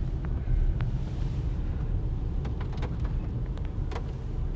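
Steady low rumble of a car driving slowly, heard from inside the cabin, with a few small sharp clicks near the end.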